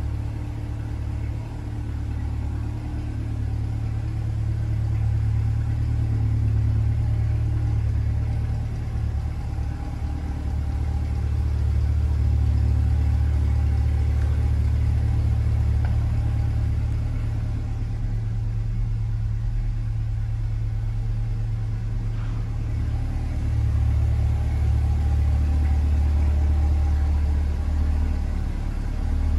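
A 2024 Chevrolet Corvette Stingray's 6.2-litre LT2 V8 idling with a steady, deep, low note. Its loudness rises and falls a little.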